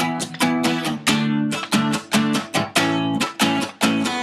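Acoustic guitar strummed in a steady rhythm, about two strums a second, with no singing.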